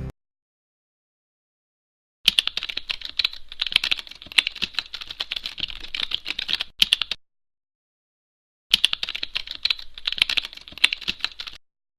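Typing on a computer keyboard: rapid key clicks in two runs, the first starting about two seconds in and lasting about five seconds, the second, after a short pause, lasting about three seconds.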